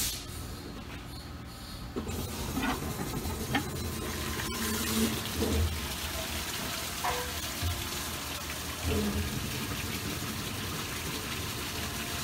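Rottler H80 CNC hone running in an engine-block cylinder: honing oil gushes steadily from about two seconds in, with the machine's stroking and a few light clicks under it.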